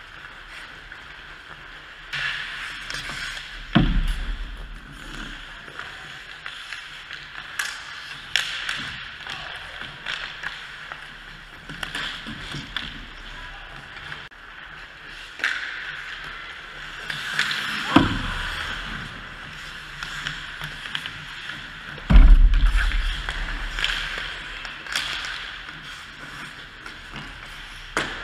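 Ice hockey play at close range: skate blades scraping the ice with scattered stick and puck clacks, and three heavy thumps about 4, 18 and 22 seconds in, the one near 22 seconds the loudest.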